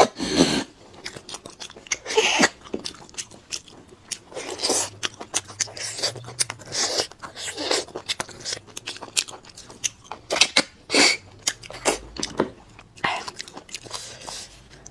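Close-up eating sounds of someone sucking marrow out of braised lamb bones and chewing the meat: wet smacking and clicking of lips and teeth, with several louder sucking slurps spread through.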